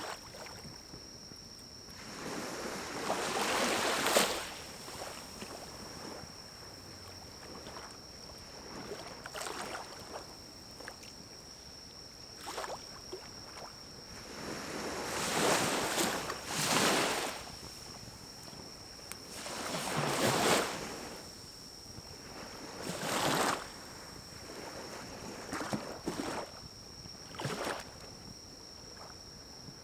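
Pine-cone fire in a small wood-burning camp stove, its flames surging in repeated whooshing swells a second or two long, loudest about a third and two-thirds of the way through, with a few sharp pops between them.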